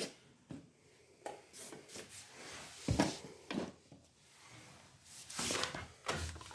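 Scattered knocks and scraping as a wedge door stopper is handled and set under a door, with the loudest knocks about three seconds in and again near the end.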